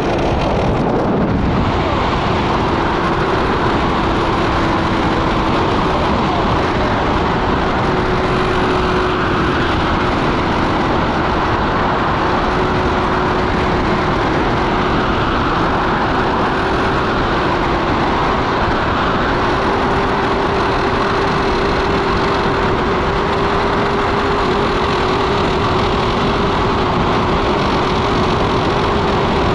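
Wind rushing over the camera microphone in flight under a tandem paraglider, steady and loud, with a steady hum underneath that rises slightly in pitch past the middle.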